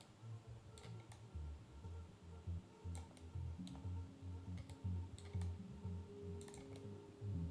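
Quiet background music with a pulsing bass beat and a few held tones, with scattered short sharp clicks.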